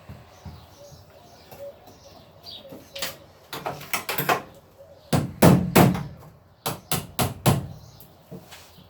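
Series of sharp knocks and bangs from a bus interior wall panel being worked at by hand. The bangs come irregularly, loudest in a quick cluster about five to six seconds in and a few more about a second later.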